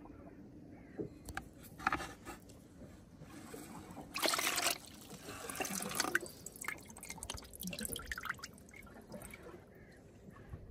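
Water splashing and trickling in short, irregular bursts with small drips and clicks, loudest for about half a second around four seconds in.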